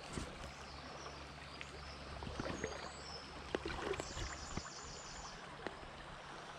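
Small, shallow stream flowing steadily. Over it come faint high bird chirps, a short trill about four seconds in, and a few light clicks.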